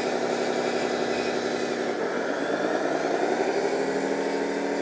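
RC bulldozer's onboard sound unit playing a simulated engine sound through its speaker as the tracks are driven. The engine note shifts pitch about two seconds in, then settles at a new steady pitch.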